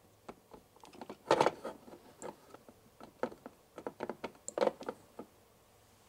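Small spoon stirring melted chocolate in a miniature ceramic saucepan, ticking and scraping against the pot, with two louder scrapes; the clicks stop shortly before the end.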